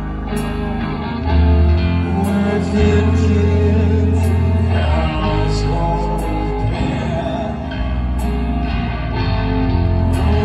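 Live rock band playing: electric guitars, bass and drums with a male singer. A cymbal hits about every two seconds, and the band gets louder about a second in.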